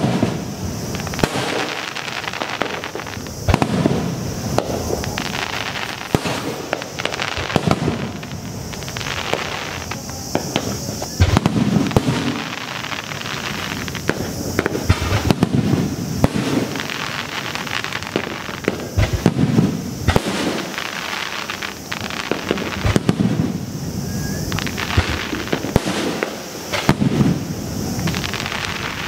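Aerial firework shells bursting in a continuous rapid barrage: repeated booms overlapping with dense crackling, with no pause.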